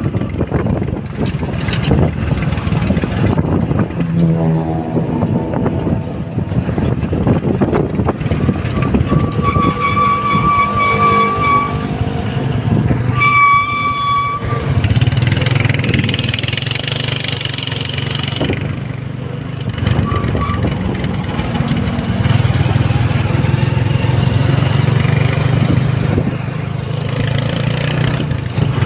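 Street traffic heard from an open tricycle sidecar: engines running with road and wind noise. A vehicle horn sounds twice, a two-second blast about ten seconds in and a short toot a couple of seconds later. A steady low engine drone runs through the second half.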